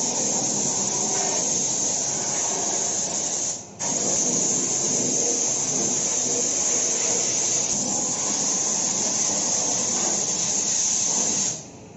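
Compressed-air spray gun hissing steadily as it sprays anti-rust coating onto a car's underbody. The spray cuts off for a moment a little under four seconds in, then runs on until shortly before the end.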